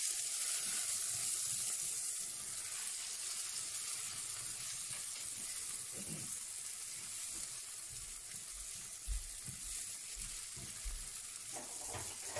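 Rice and vermicelli sizzling as they toast in hot oil in a frying pan, stirred with a spoon: a steady hiss, with a few soft knocks in the second half.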